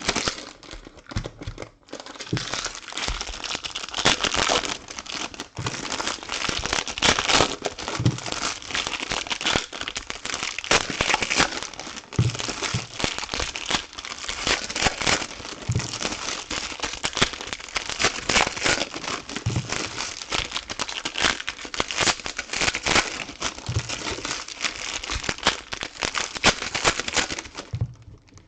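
Plastic wrapping on trading-card boxes and packs being handled and torn open, crinkling and crackling continuously with sharper tearing noises among it.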